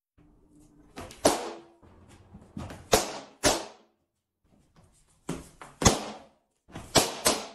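Balloons bursting as they are kicked: a series of sharp pops, about half a dozen, spaced irregularly, with a few softer knocks between them.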